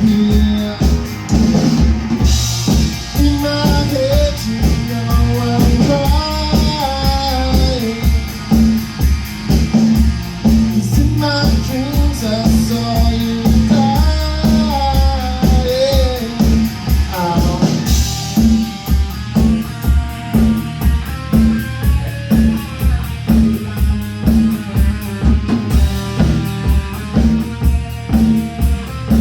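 Rock band playing live: a singer over electric guitar, bass and a drum kit keeping a steady beat. The vocal line drops out a little over halfway through, leaving the guitar to carry the tune.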